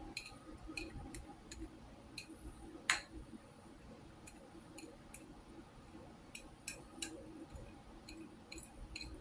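Wooden chopsticks tapping and scraping on a small plate while sweeping fried garlic off it: a string of light, irregular clicks, with one louder click about three seconds in.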